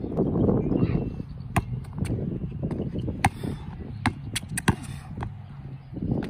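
A basketball bouncing on an outdoor hard court as it is dribbled, a string of sharp, irregularly spaced bounces.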